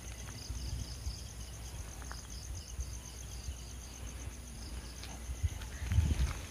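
Night insects chirping in a steady, high, pulsing trill. A low rumble runs underneath, with a few low thumps near the end.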